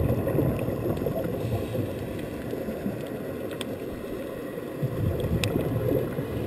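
Muffled underwater noise during a scuba dive: low rumbling and gurgling of water and bubbles. It swells near the start and again about five seconds in, with a few faint clicks.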